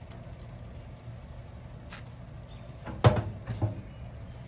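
Two sharp knocks, a loud one about three seconds in and a lighter one about half a second later, over a steady low hum.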